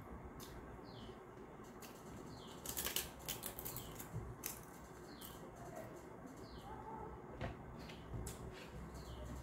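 Close-up eating sounds: a crisp papad being bitten and chewed, with the loudest crackling crunches about three seconds in and scattered clicks after. Behind it, a small bird chirps over and over, a short high falling note about once a second.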